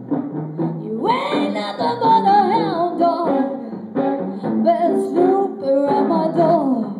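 A woman singing live into a microphone with guitar accompaniment. Her voice comes in strongly about a second in with sliding, bending notes.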